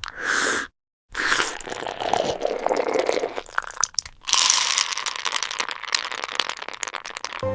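Close-miked eating sounds: rapid crackly crunching and chewing of food, broken by a brief silence about a second in and a short pause near the middle.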